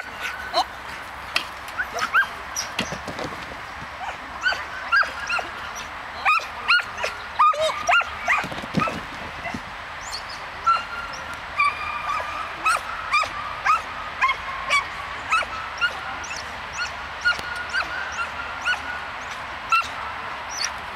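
Dog barking in short, high-pitched yips, over and over, roughly one a second, with some drawn-out whining between them.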